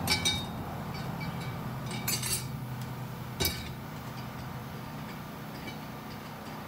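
Steel clutch plates and friction discs from a 4L60E/4L65E 3-4 clutch pack clinking against each other and the drum as they are lifted out by hand. The clinks come in three bursts: at the start, about two seconds in, and a single sharp one about three and a half seconds in. A low steady hum runs underneath.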